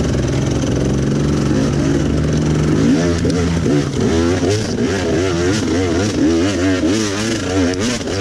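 Enduro motorcycle engine running steadily, then revving up and down repeatedly from about three seconds in.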